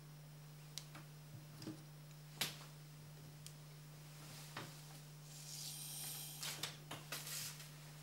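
Light taps and clicks of small objects being handled on a wooden tabletop, the loudest a sharp tap about two and a half seconds in, then a couple of seconds of paper rustling and sliding as a magazine page is lifted away, over a steady low electrical hum.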